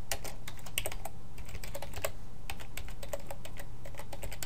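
Typing on a computer keyboard: irregular runs of keystroke clicks with short pauses between them, over a steady low hum.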